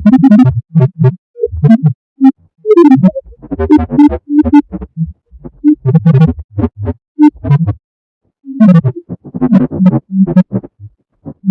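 Electronic synthesizer music of short, choppy notes over low bass hits, breaking off briefly about eight seconds in.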